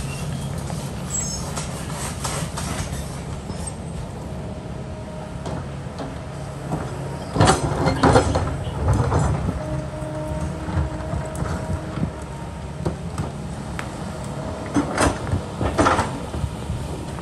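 Kobelco excavator's diesel engine running steadily, with sharp knocks and scrapes of the bucket against rock: a loud cluster about seven to eight seconds in and another near the end.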